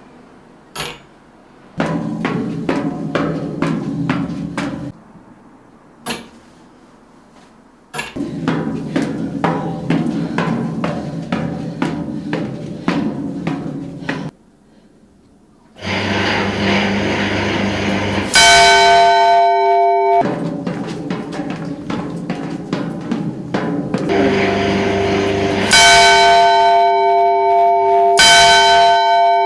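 Rapid percussive knocks in bursts separated by short gaps, then, from about two-thirds of the way through, loud sustained bell-like tones ringing over the knocking.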